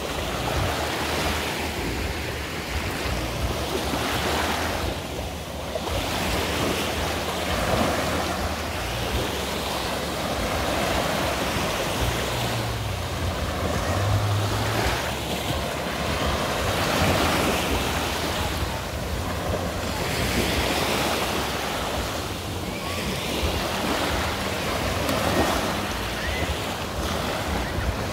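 Small waves washing in on a sandy shore, the surf swelling and ebbing every few seconds, with wind rumbling on the microphone.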